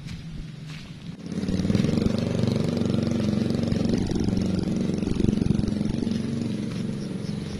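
A small engine running steadily, growing much louder about a second in and staying loud.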